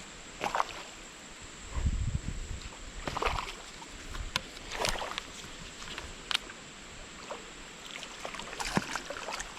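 Irregular splashes and sloshes of water from a small hooked smallmouth bass fighting at the surface as it is reeled in through shallow creek water.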